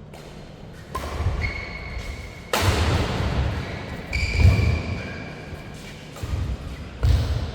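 Badminton doubles rally: a run of sharp racket hits and heavy thuds on the court, about five over several seconds, with short high squeaks between them.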